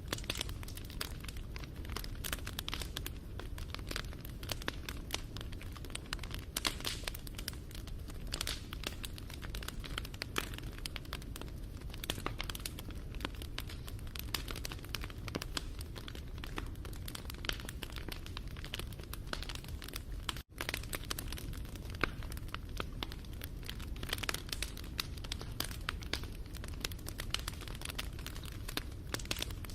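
Wood fire crackling: a dense, irregular stream of small pops and snaps over a low rumble of burning, broken by a momentary gap about two-thirds of the way through.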